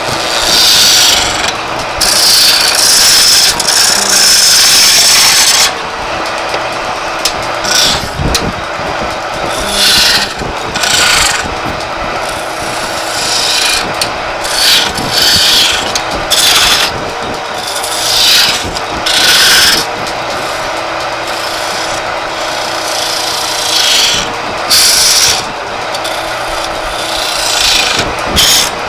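Wooden charpai leg being turned on a belt-driven wood lathe: a hand-held chisel scrapes and cuts the spinning wood in repeated bursts over the lathe's steady running. The first cut lasts a few seconds; later cuts are shorter, about a second each.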